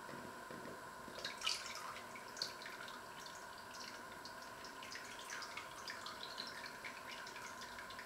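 Hot broth dripping and splashing back into the pot from a whole boiled chicken held above it, in scattered drops, with a louder splash about a second and a half in.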